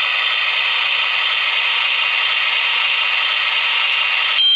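Toy kitchen oven's electronic sound effect from a Barbie Modern Comfort Kitchen, played loud through its small speaker: a harsh, steady buzzing noise that a high steady beep takes over near the end. The owner calls the sound awful.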